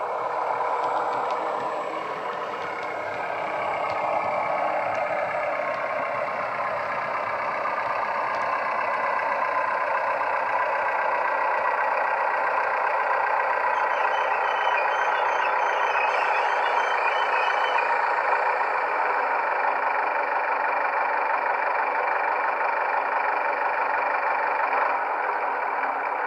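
Sound decoder in an OO gauge GWR AEC railcar model playing its diesel engine sound through the model's small speaker. The engine note shifts in pitch over the first few seconds, then runs steadily as the railcar drives along.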